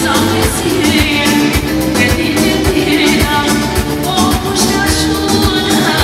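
Upbeat dance music with a steady drum beat, with a voice singing over the band.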